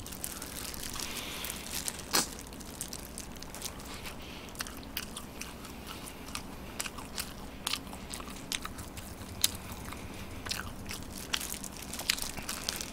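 Close-miked eating of fried chicken: chewing and biting with irregular sharp crunches and mouth clicks, the loudest about two seconds in.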